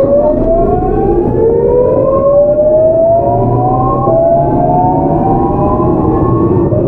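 GEC Alsthom GTO-VVVF traction inverter of a Seoul Metro 8000 series train whining as the train accelerates. Several tones rise together, with a jump in pitch about four seconds in and again near the end, over the running rumble of the train.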